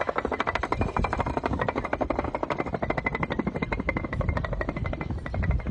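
Concrete pavers toppling one after another in a domino cascade, a rapid run of hard clacks, about a dozen a second, as each paver knocks into the next.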